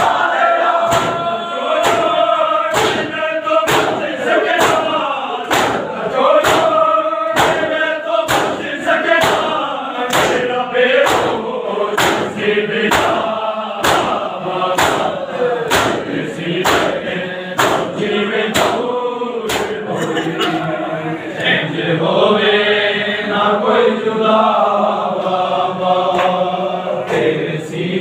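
A group of men chanting a noha in unison, over a steady beat of open-hand slaps on bare chests (matam), nearly two slaps a second. The slaps thin out about two-thirds of the way through while the chanting goes on.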